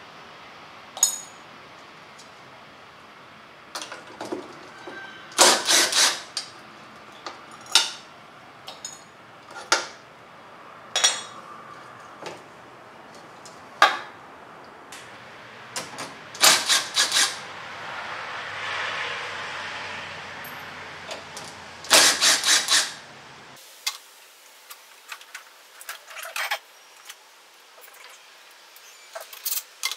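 Metal clanks, clicks and knocks of tools and engine parts being handled while the air cleaner is taken off a zero-turn mower's engine, with loud clusters of rattling knocks about 5 s, 16 s and 22 s in. A faint low hum in the background stops suddenly about 24 s in.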